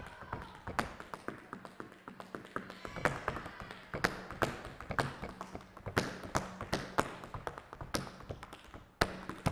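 Tap shoes striking a stage floor in a fast tap-dance sequence: sharp, crisp taps in quick rhythmic clusters, several a second.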